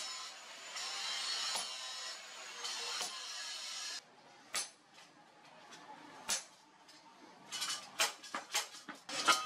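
Hammer striking a chisel held on a steel motorcycle brake disc over an anvil: sharp metallic clanks, two spaced well apart, then a quicker run of blows near the end. Before them, a steady harsh metallic noise with ringing tones runs for about four seconds and cuts off abruptly.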